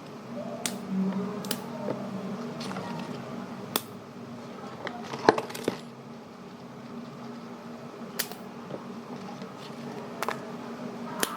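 Knife slicing chili peppers on a cutting board: sharp, irregular taps as the blade comes down through the chili onto the board, the loudest about five seconds in, over a steady low hum.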